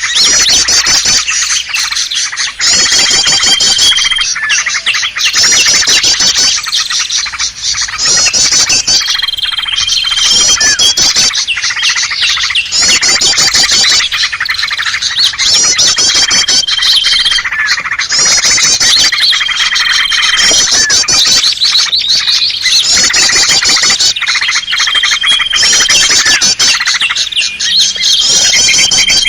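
A busy chorus of small songbird calls, bulbuls and prinias, mixed into a bird-trapping lure recording. Rapid high trills and a short held whistle come back about every two seconds over constant chattering.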